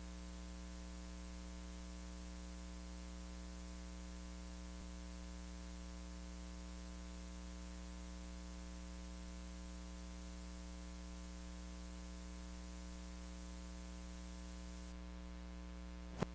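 Steady electrical mains hum with a faint hiss underneath, a buzz of evenly spaced tones from the recording setup. A single click near the end.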